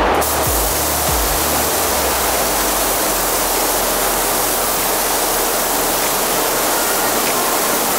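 Compressed-air paint spray gun hissing steadily as it sprays black paint onto masked car trim over adhesion promoter; the hiss starts just after the beginning and does not let up.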